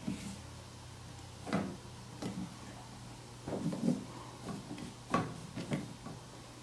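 Scattered light knocks and clicks of a cut rubber hose and a hose clamp being handled and worked onto a fitting, over a steady low hum.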